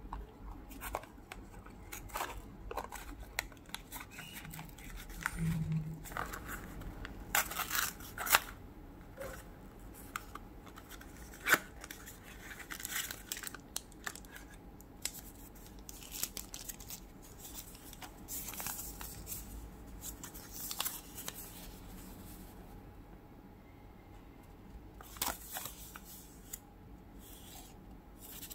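Hands unboxing a small cardboard blind box: the cardboard tearing and flaps opening, a clear plastic bag crinkling and a paper leaflet rustling. Scattered sharp clicks and rustles, the loudest snaps about eight and eleven seconds in.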